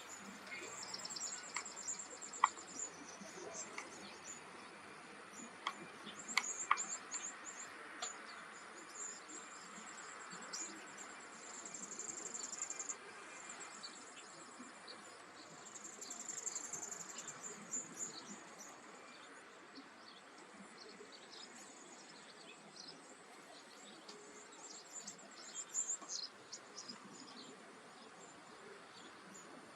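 Wetland ambience: steady high-pitched insect chirring with scattered bird chirps and a few sharp clicks.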